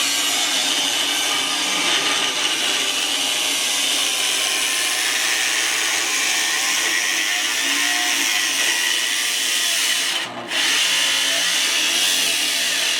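Power tool cutting into the car's steel, a steady high-pitched cutting noise that pauses briefly about ten seconds in.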